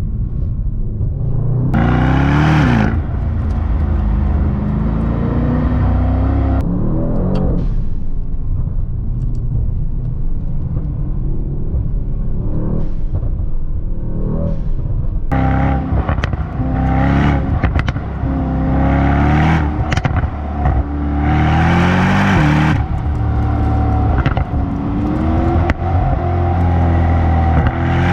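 Brabus Rocket 900's 4.5-litre biturbo V8 with Brabus performance exhaust, revved hard several times: each climb in pitch ends in a sharp drop, with cracks and pops from the exhaust in the second half.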